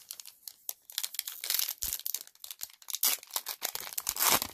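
Foil wrapper of a small Magic: The Gathering booster pack being torn open and crinkled by hand: a quick run of rustling crackles, loudest near the end.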